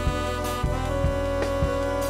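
Soundtrack music: sustained chords over a steady beat about twice a second, with a new held note coming in about a second in.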